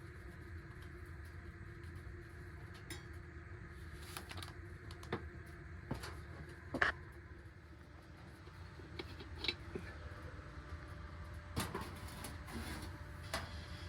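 Scattered clinks and knocks of cookware and utensils being handled, the loudest a little before halfway, over the steady low rush of a butane camp stove burner.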